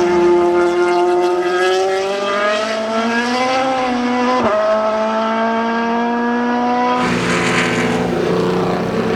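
Historic racing car engine revving up under hard acceleration, pitch climbing for about four seconds, then a quick gear change about four and a half seconds in before it pulls on at a steadier note. About seven seconds in, the sound changes abruptly to another car's engine.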